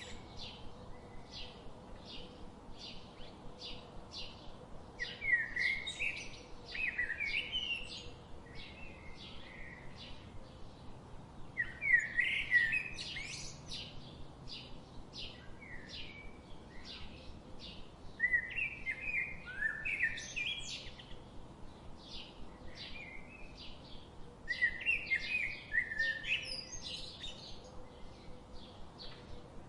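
Birds chirping and singing: a short chirp repeated about twice a second, with a louder warbling song phrase breaking in about every six seconds.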